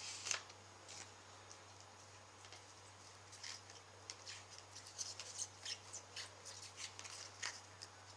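A trading-card packet being opened and its cards handled and flicked through: a run of faint, crisp clicks and rustles, busiest in the second half.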